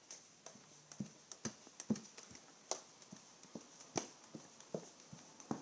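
Faint, irregular soft taps and clicks, about two or three a second: handling noise of a handheld phone as its holder moves about.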